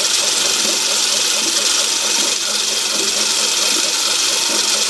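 Myford ML7 lathe running under power while screw-cutting a metric thread with a 5-thou cut on: a steady whir with a strong high hiss and a fast, even pulsing underneath.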